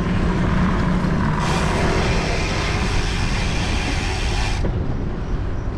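Road traffic noise: a steady low engine hum, with a louder rushing hiss for about three seconds in the middle.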